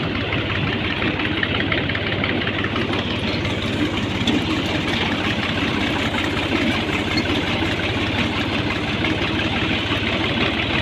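Tractor's diesel engine running steadily under way, with a fast, even beat.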